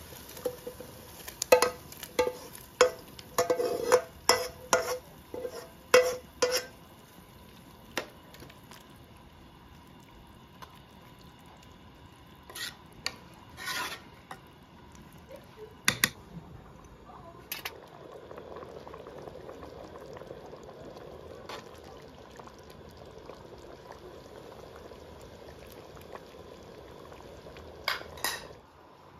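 A metal spoon tapping and scraping against a metal frying pan in quick, ringing strokes as a fried tomato-and-onion mixture is emptied into a pot of beans, then a ladle clinking against the pot while stirring. For the last ten seconds or so a steady low bubbling hiss of the pot simmering, with a couple of clinks near the end.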